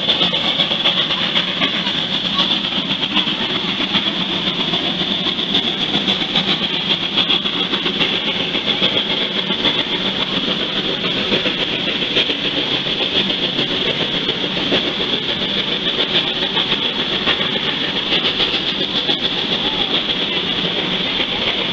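Steady running noise of a steam-hauled passenger train in motion, heard from aboard one of its cars, with a constant high hiss over the rumble and clatter.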